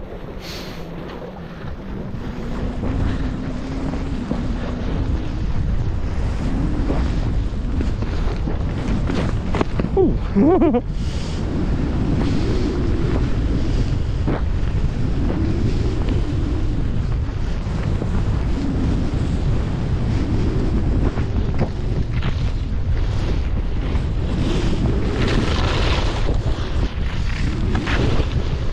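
Wind buffeting the microphone while riding down a groomed ski run, with the hiss of sliding over packed snow swelling and easing through the turns. A brief wavering tone comes about ten seconds in.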